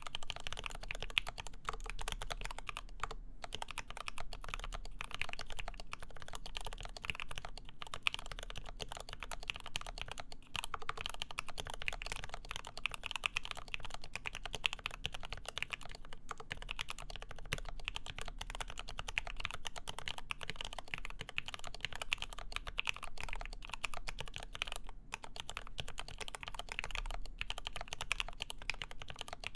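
Continuous fast typing on a Lin Works EM7 mechanical keyboard: lubed ZealPC Tealios linear switches in a full aluminium plate under GMK keycaps. The keystrokes come in a dense, even stream with a few brief pauses.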